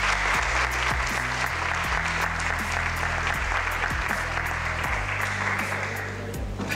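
Audience applauding over background music with a steady beat and bass line; the applause dies away near the end.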